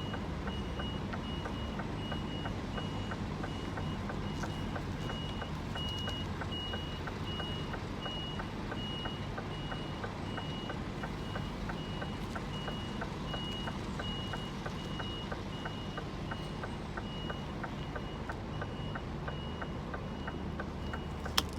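Scania articulated lorry reversing: its reversing alarm beeps steadily, about two beeps a second, over the low, even running of the diesel engine, with a quick regular ticking underneath.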